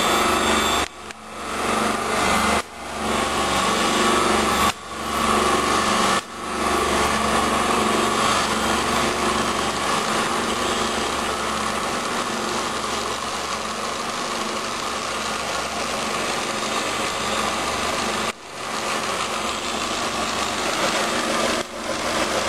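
Sun 506 distributor tester's drive motor running, spinning a Motorcraft distributor at low speed with a steady hum and whine. It breaks off briefly about four times in the first six seconds, then runs steadily, with one more short dip near the end.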